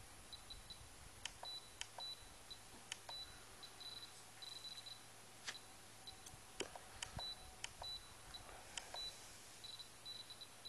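Faint, short high electronic beeps in irregular runs, with scattered sharp clicks, from the radio-control gear of a model helicopter whose rotor is standing still.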